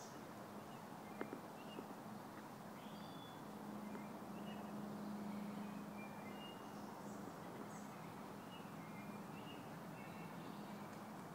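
Quiet woodland ambience with faint, scattered bird chirps and a low steady hum that swells a little in the middle, plus a faint click about a second in.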